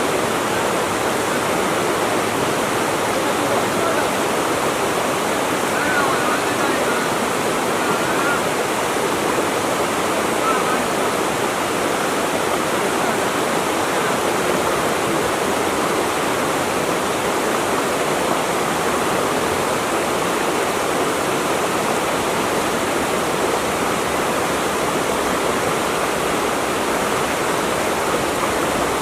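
Flowing water rushing steadily, a continuous even wash of sound like a waterfall or stream.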